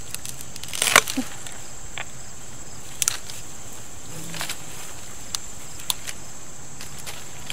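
Long-handled loppers snapping through a dead tree branch about a second in, followed by a few lighter cracks and twig rustles. A steady high-pitched trill of crickets runs underneath.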